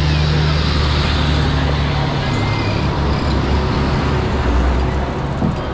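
Large modern farm tractors driving past one after another, their diesel engines running with a deep steady rumble and tyre noise on the tarmac.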